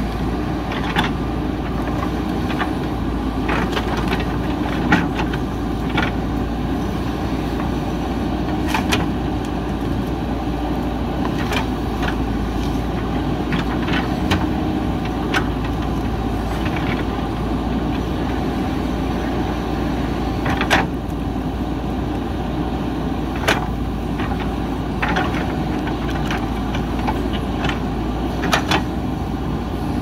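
JCB 3DX backhoe loader's diesel engine running steadily as the backhoe bucket digs and drags roots and brush, with scattered sharp cracks and knocks throughout.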